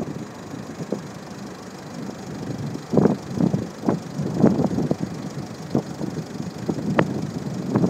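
Very strong gale-force wind buffeting a phone's microphone in irregular gusts: a lower rumble for the first few seconds, then repeated sudden blasts, over the wash of heavy surf.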